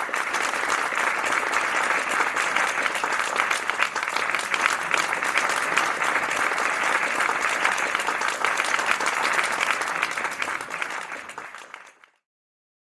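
Audience applauding, a steady dense clapping that fades out about eleven seconds in and leaves a brief silence.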